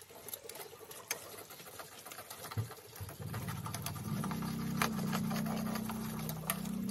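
Metal tongs and a wooden spatula clicking and scraping against an aluminium wok as caramel-coated donuts are turned and lifted out. A low droning hum comes in about three seconds in and grows to be the loudest sound.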